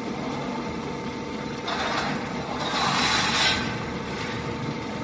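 Profiled-sheet roll-forming machine running with a steady hum, joined by a louder hissing noise from about two seconds in that fades out about a second and a half later.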